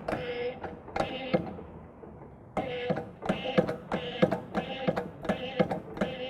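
Hand-operated water pressure test pump being worked in quick strokes, each stroke giving a short squeak, about two to three a second with a brief pause early on, raising the water pressure in the sprinkler pipe.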